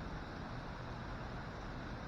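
Rain sound effect: a steady, even hiss of falling rain.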